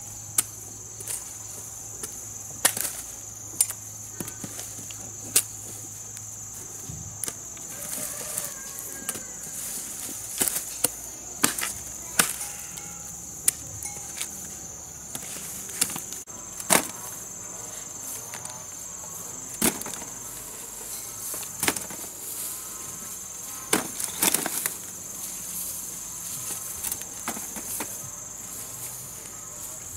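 Chopping, a sharp knock every second or two at an uneven pace, over a steady high drone of insects.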